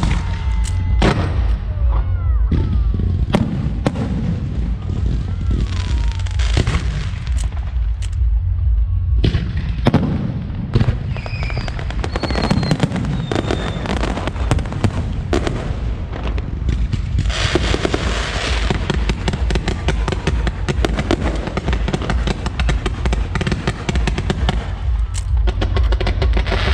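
Aerial fireworks going off in a continuous string of bursts and booms. There are falling whistles near the start, and a dense stretch of rapid crackling from about two-thirds of the way through.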